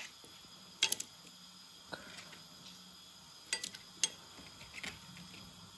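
Cauliflower florets being dropped by hand into a bowl of batter, with about five sparse, light clicks and taps against the bowl and the steel spoon resting in it.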